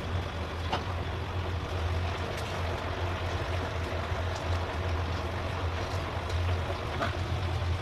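Steady low hum and hiss of room noise in an eatery, with a few faint clicks.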